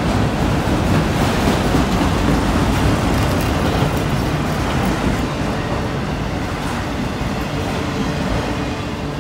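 Long freight train of autorack cars rolling past, a steady rumble of steel wheels on rail that eases slightly toward the end. The train is descending a steep grade with its brake shoes applied hard enough to smell burning.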